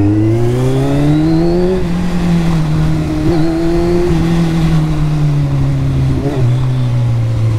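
Kawasaki superbike engine accelerating, its pitch rising for about the first two seconds, then holding at a steady cruise and easing down slightly, with wind and road noise.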